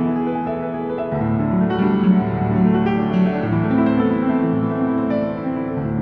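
Background piano music, with sustained notes and the lower notes filling in about a second in.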